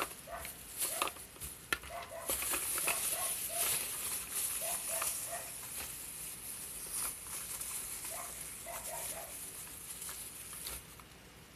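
Small plastic toys being handled: scattered clicks, taps and rustling.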